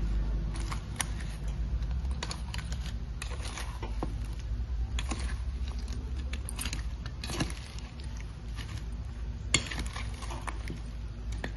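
A steel spoon clinking and scraping against a stainless steel bowl while stirring oil-coated tilapia pickle pieces, in irregular short clicks over a steady low hum.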